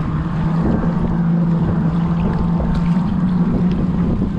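Boat outboard motor running with a steady low hum, stepping up slightly in pitch past the middle, with wind rumbling on the microphone.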